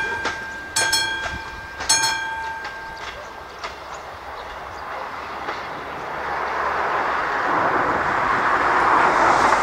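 Level crossing's classic bell striking about once a second, each stroke ringing on, and stopping after about two seconds as the crossing switches off. After it, a rushing noise grows steadily louder toward the end.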